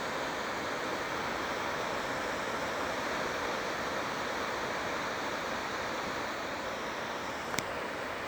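Waterfall rushing steadily, an even roar of falling water, with a single sharp click near the end.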